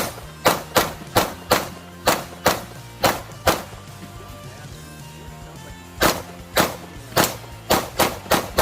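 CZ P-10 F pistol firing rapid shots, about nine spaced roughly half a second apart, then a pause of about two and a half seconds, then about seven more in quick succession. Background music plays underneath.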